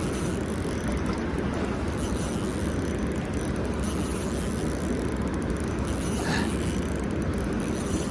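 Steady, deep rushing noise of churning tailwater pouring out below a river dam's gates.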